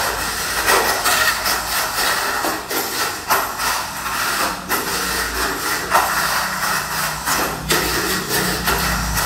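Tamiya Mini 4WD car with an MS chassis running laps on a plastic track: a steady high-pitched buzzing of its small electric motor and gears, with hard clacks a second or two apart as it strikes the track's walls and joints.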